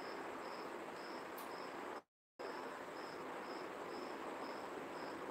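A cricket chirping faintly and evenly, short high chirps about twice a second, over a steady hiss of room noise.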